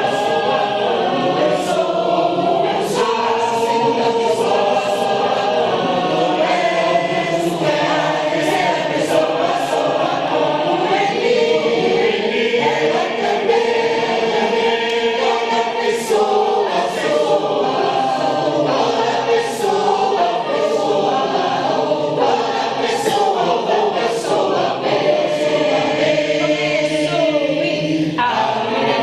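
Church choir singing a sacred song in several voice parts at once.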